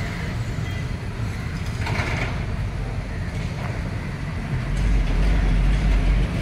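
Steady low rumble of road traffic, growing deeper and louder about five seconds in.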